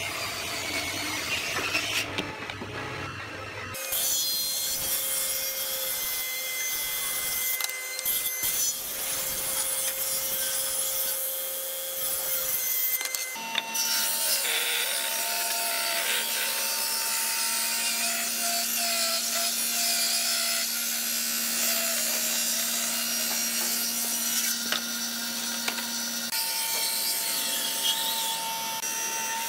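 Table saw running and ripping wooden boards into strips: a steady blade hum under the rasp of the cut, in several separate stretches. Near the end, a woodworking machine blows sawdust out of its chute.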